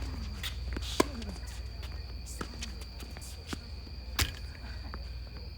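Tennis ball struck by rackets during a point: two sharp pops, about a second in and a little after four seconds in, with fainter ticks between them. Underneath are a steady high drone and a low hum.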